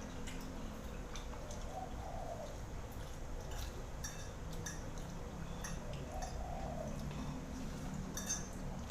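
Scattered light clinks and taps of dishes and utensils during a meal, over a steady low background hum.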